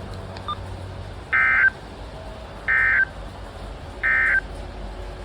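Emergency Alert System SAME digital tones from a NOAA Weather Radio broadcast: three short, equal buzzy data bursts about 1.4 s apart, the end-of-message code closing the tornado warning. Near the end a longer burst of the same tones begins, the header of the next alert.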